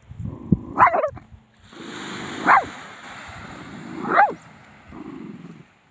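Small dog whining and yelping: a wavering whine about a second in, then two short, sharp high cries about two and a half and four seconds in.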